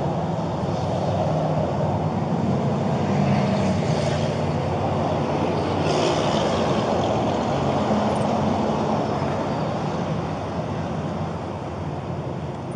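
Steady vehicle noise: a motor vehicle engine running with a low hum, easing off slightly near the end.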